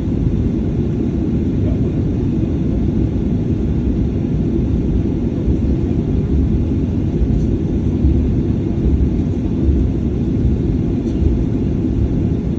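Steady low rumble of a Boeing 737-800's CFM56 jet engines and airflow, heard inside the passenger cabin.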